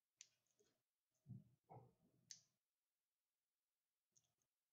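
Faint clicks and taps of a dry-erase marker against a whiteboard: a few sharp clicks with a couple of duller knocks in between.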